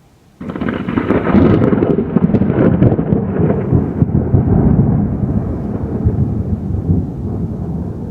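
Thunder from a close lightning strike: it breaks suddenly about half a second in, crackling sharply for the first few seconds, then rumbles on loud and slowly fades.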